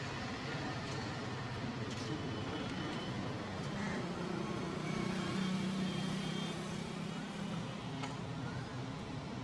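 Road traffic going by, with a vehicle engine humming louder for a couple of seconds in the middle.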